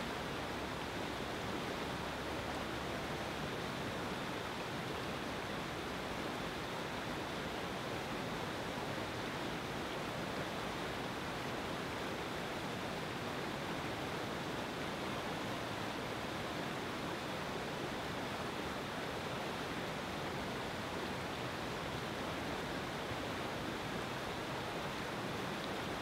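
Whitewater river rapids rushing steadily over rocks: an even, unbroken water noise that does not change.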